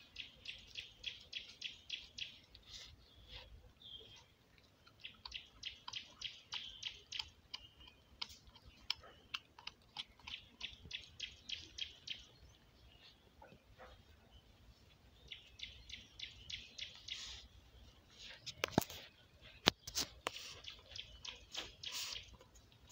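A puppy chewing on a dead rooster: quick crunching chews, about five a second, in runs of a few seconds with short pauses, and a few louder sharp cracks near the end.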